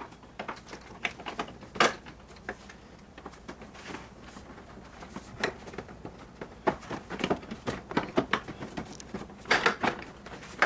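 Plastic retaining clips of a 2020 Toyota Tacoma's front bumper cover snapping into place as the cover is pressed back on: a run of irregular sharp clicks and pops. One loud snap comes about two seconds in, and a dense cluster comes near the end.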